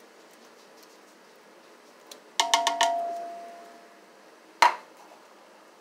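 Metal knocking on a stainless steel cooking pot: a quick run of about four taps that leaves the pot ringing for about a second and a half, then one sharper knock near the end.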